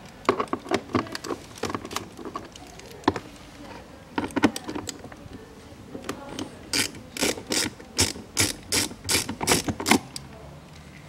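Ratcheting handle with a 5.5 mm socket clicking as it is worked back and forth, backing out the self-tapping screws of a cabin air filter cover. Scattered clicks at first, then a steady run of about three sharp clicks a second in the second half.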